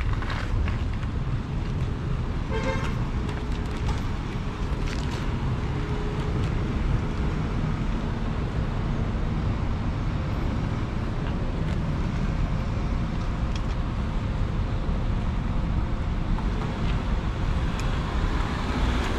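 Steady traffic and road noise with a low wind rumble on the microphone while riding an e-bike in the cold. A short horn toot sounds about three seconds in.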